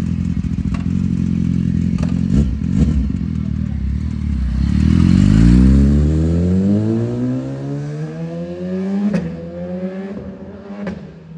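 BMW S1000RR's inline-four engine running steadily, then revving up about four seconds in, its pitch rising steadily as it grows fainter, as if pulling away. A few sharp clicks come through.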